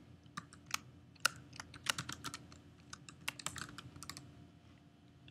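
Typing on a computer keyboard: a quick, irregular run of faint key clicks that stops about four seconds in.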